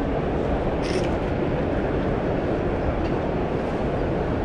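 Steady din of a crowded exhibition hall: many visitors talking at once, blurred into a low rumbling hubbub by the hall's echo, with a brief sharp sound about a second in.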